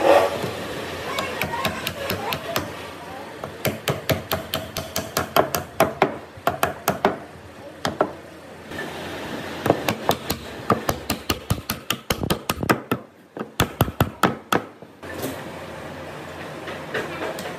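Wooden mallet tapping thin pine slats down into a wooden block, many quick light knocks in runs of several a second, wood on wood. The knocking stops about fifteen seconds in.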